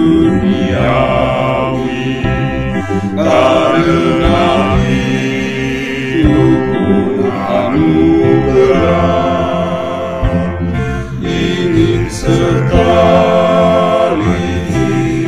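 Male vocal quartet (two tenors and two basses) singing a hymn in harmony, with long held notes.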